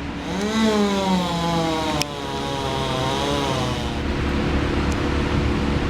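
Chainsaw revving up and running at high speed, then winding down about four seconds in, over a steady lower engine drone.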